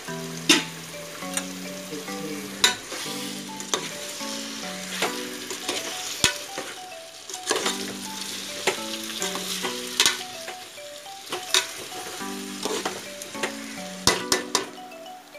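Chicken and potato pieces sizzle in an aluminium pot while a metal spoon stirs them, knocking and scraping against the pot's sides about once a second. A soft background melody plays underneath.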